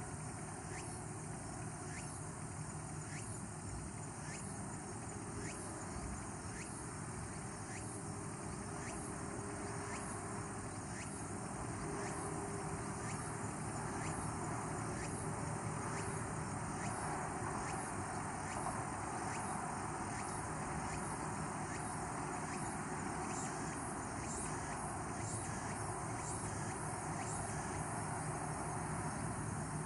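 Insects, crickets among them, singing in an evening chorus: a steady high trill with regular chirps, roughly three every two seconds, over a steady background hiss that grows a little louder about halfway through.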